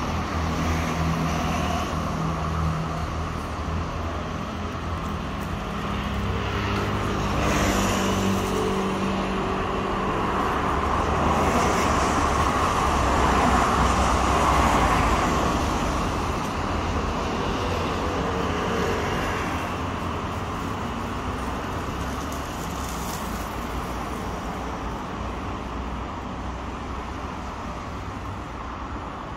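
Road traffic: engines running and vehicles passing, with a steady low hum and a swell of passing traffic that peaks around the middle and then fades back.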